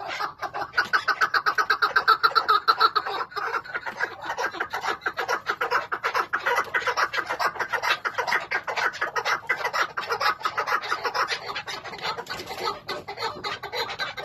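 Chukar partridges calling: a long, unbroken run of rapid clucking notes, several a second, loudest in the first few seconds.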